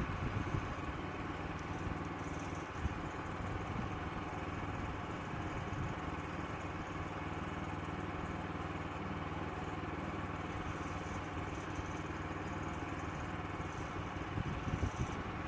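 Sawmill engine running steadily, with some louder rattling near the end.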